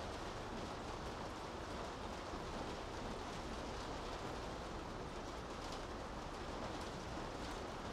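Steady rain falling on city streets: an even hiss with faint scattered ticks of drops.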